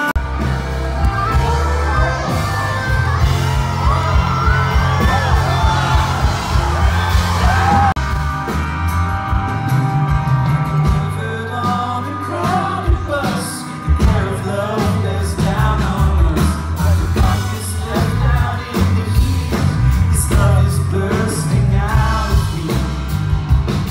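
Live band music heard from the audience: a male singer sings over strummed acoustic guitar, keyboards and a heavy, booming bass.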